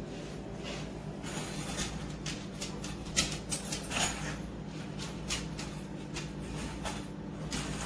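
Scattered light clinks and knocks of a non-skid stainless steel dog bowl being nosed and pushed by a dog trying to tip it over, the sharpest knocks about three and four seconds in. A steady low hum runs underneath.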